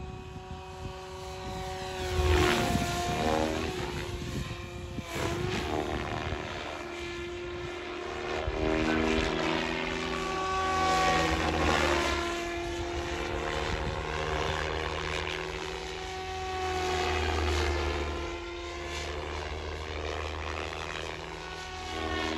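SAB Goblin 500 electric radio-control helicopter in flight. The whine of its rotor blades and motor rises and falls in pitch and loudness several times as it sweeps past, loudest about two seconds in and again around the middle.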